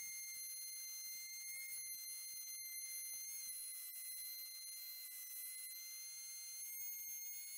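Table-mounted wood router running with a steady high-pitched whine while a board is pattern-trimmed against a bearing-guided bit, copying its edge from a template board.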